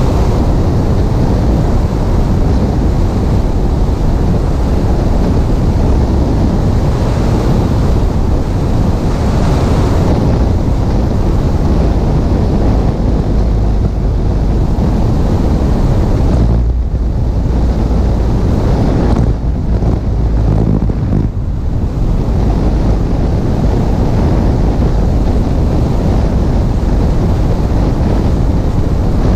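Loud rushing wind buffeting the microphone of a camera mounted on the stabilator of a Piper Cherokee in flight. The hiss eases briefly a few times past the middle.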